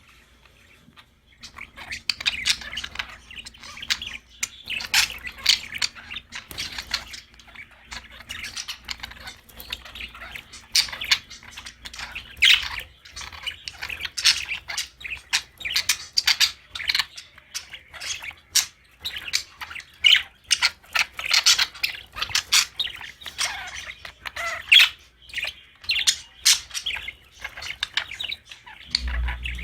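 Budgies (budgerigars) chattering with rapid chirps and squawks, almost without pause after a brief lull at the start.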